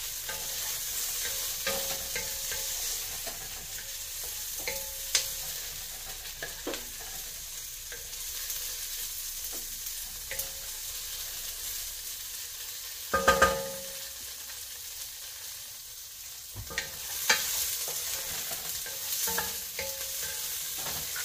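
Diced tofu and red onion sizzling as they brown in a pot, stirred with a wooden spoon that scrapes and clicks against the pot. A few louder knocks ring out about thirteen seconds in, and another shortly after.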